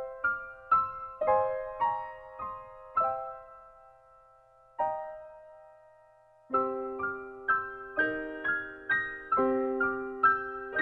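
Background piano music: a light melody of single notes that thins out to almost nothing in the middle, then comes back fuller with lower notes added about two-thirds of the way in.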